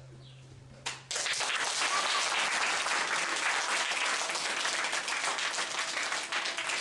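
Audience clapping in applause, starting suddenly about a second in and holding steady until just before the end. Before it, the last low held note of the music dies away.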